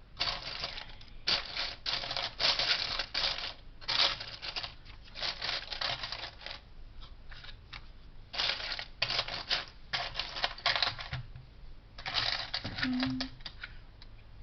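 Small plastic Lego pieces clattering as a hand rummages through them, in repeated bursts of about a second with short pauses between.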